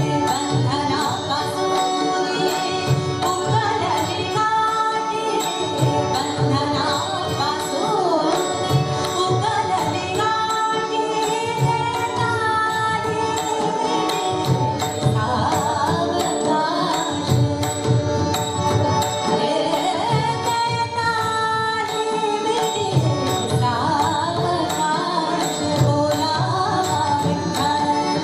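A Marathi abhang performed live: a woman sings a gliding devotional melody over steady held harmonium notes, with tabla and pakhawaj drums keeping an even beat.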